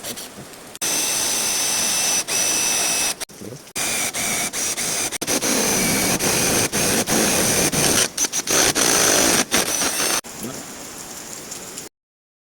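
Power drill running in two long bursts with a steady high whine, boring into the door for a rim lock, then running quieter briefly before stopping.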